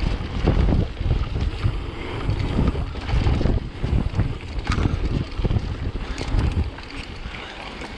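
Wind buffeting the microphone in irregular low rumbling gusts, with an occasional sharp click.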